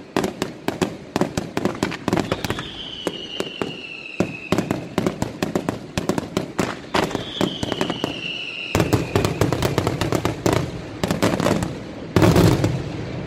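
Sanseverese-style fireworks battery firing: rapid volleys of sharp bangs, many per second. Twice a high whistle slides slightly down in pitch over about two seconds, and a dense, loudest burst comes near the end.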